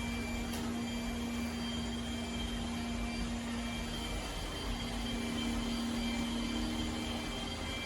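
Robot vacuum running with a steady whir and a low hum, the hum shifting slightly in pitch about halfway through.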